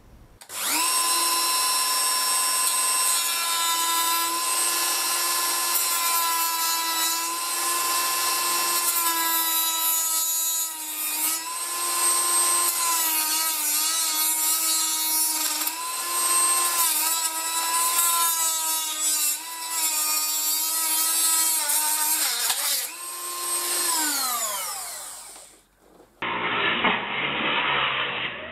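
Handheld rotary tool with a cut-off disc running at high speed, a steady whine that dips and wavers as the disc bites into the antenna mounting plate. About 23 seconds in it is switched off and spins down with a falling whine. After a break, a shorter, duller burst of cutting follows.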